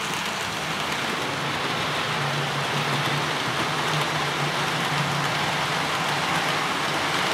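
OO gauge model train running along the layout track: a steady rolling hiss of wheels on rails with a low, even hum underneath.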